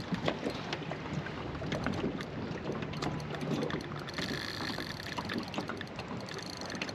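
Water lapping against a small aluminium boat's hull, with scattered light knocks and clicks and a short low hum about three seconds in.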